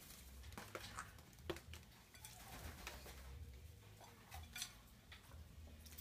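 Faint, scattered splashes and small clicks as an Indian ringneck parakeet bathes in a ceramic water dish.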